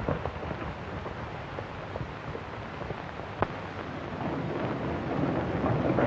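Crackling hiss of an old black-and-white film soundtrack, dotted with small clicks, with one sharper crack about three and a half seconds in. The noise grows louder near the end.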